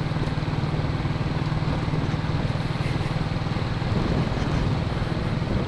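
Royal Enfield single-cylinder four-stroke motorcycle engine thumping steadily at a constant cruise, heard from the rider's seat.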